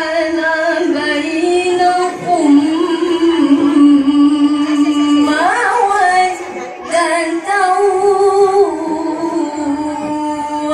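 A woman reciting the Qur'an in the melodic tilawah style into a microphone. She draws out long held notes with ornamented rises and falls, pausing briefly for breath about two-thirds of the way through.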